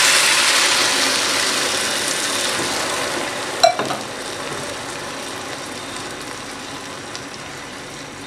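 Hot water poured onto basmati rice fried in ghee in a hot pot, sizzling and slowly dying down as the pan cools. A single sharp knock about three and a half seconds in.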